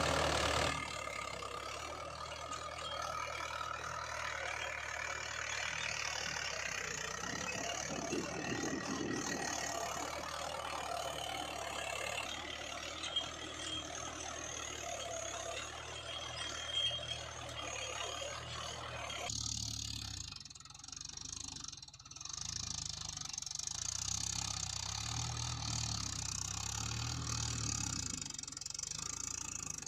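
Tractor engine sound idling with a steady low chug. About two-thirds of the way in the higher hiss falls away and the low chugging carries on.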